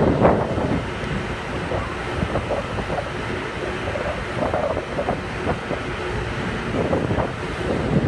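Rooftop HVAC units running with a steady rushing noise, with wind buffeting the microphone in uneven gusts.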